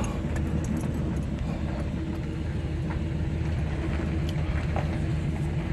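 Truck engine running steadily while the truck is driven slowly, heard from inside the cab.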